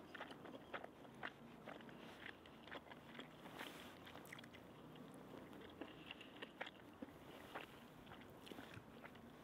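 A person chewing a mouthful of cheesy noodles, with soft, irregular small clicks of the mouth.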